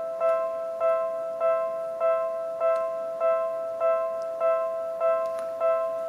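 Japanese railway level-crossing alarm bell ringing in an even, steady rhythm, about one strike every 0.6 seconds, each a bright ringing tone that fades before the next. It is warning that a train is approaching.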